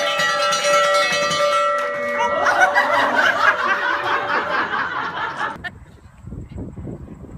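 A hanging wall bell ringing out and dying away over the first two seconds, then children shouting and laughing in excitement. About three-quarters of the way through it cuts off suddenly to quieter outdoor sound.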